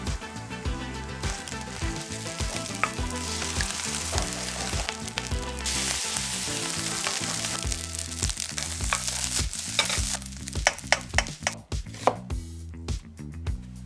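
Egg fried rice sizzling in a hot pan as it is stir-fried. The sizzle thins out about ten seconds in, leaving a run of sharp clicks and knocks. Background music with a low, repeating beat plays throughout.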